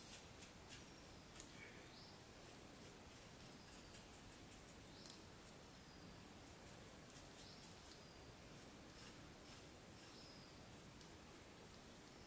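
Faint, irregular scratchy strokes of a paintbrush's bristles sweeping dust off a laptop's motherboard and heatsink, several strokes a second in short spells.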